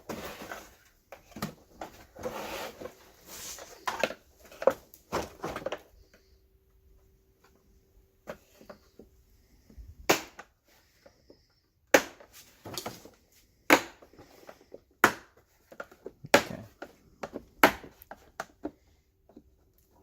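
Plastic retaining clips and tabs being pried loose with a screwdriver. Handling and scraping first, then a quiet stretch, then a series of sharp snaps and clicks about once a second as the clips pop out.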